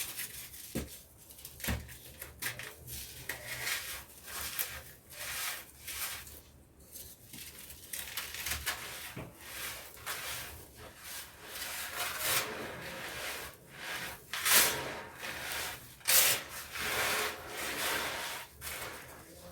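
Dry cement blocks crumbling by hand: a run of irregular gritty crunches and rubbing, with the loudest crunches in the second half.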